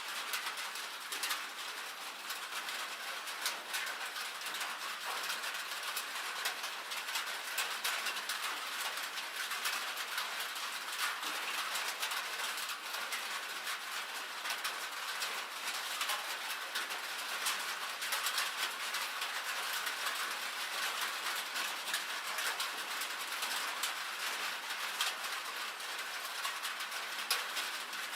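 Rain and hail drumming on a metal roof: a steady, dense patter of countless small sharp ticks on the sheet metal, with no let-up.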